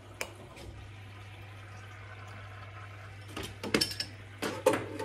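Coin-operated laundromat washing machine running, water pouring in over a steady low hum. A few short knocks and clinks come about three and a half seconds in.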